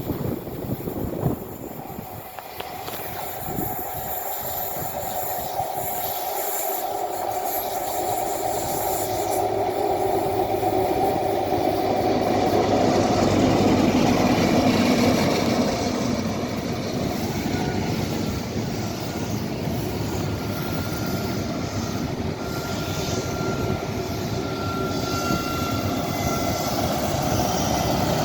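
A train running through the station, growing louder to a peak about halfway through, then continuing steadily with a faint thin high squeal from the wheels or brakes in the second half.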